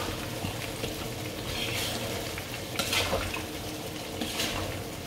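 Crab masala gravy being stirred in a pan as it cooks: a spoon scrapes the pan three times over a steady low sizzle.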